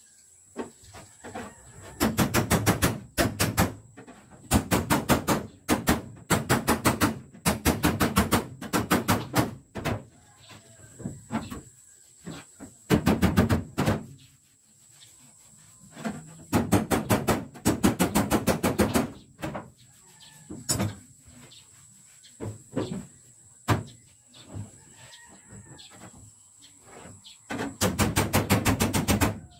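Rapid hammer taps on a Toyota Celica's steel bonnet, about ten blows a second in bursts of a second or so with short pauses between. This is panel beating to knock out and shape the bonnet.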